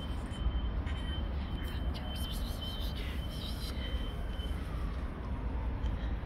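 Outdoor street ambience: a steady low rumble, with a thin steady high-pitched tone that stops about three-quarters of the way through and a few faint clicks.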